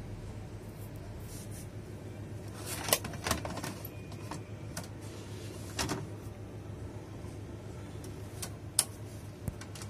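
VHS cassette pushed into the front-loading slot of a National G33 four-head VCR, with plastic clacks as it goes in and clicks of the loading mechanism as the machine takes the tape and starts play. Sharp clicks come about three seconds in, around six seconds and a few more near the end, over a steady low hum.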